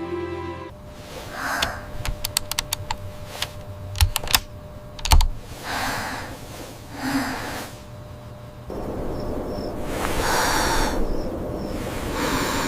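Cartoon sound effects: a quick run of sharp clicks and two heavier thumps, followed by several breathy rushing sounds about a second long.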